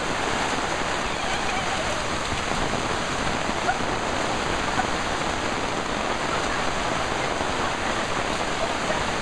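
Heavy tropical downpour: a dense, steady hiss of rain falling hard.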